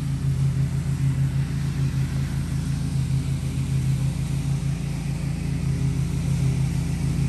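An engine running steadily at a constant speed: a low, evenly pulsing hum that does not change.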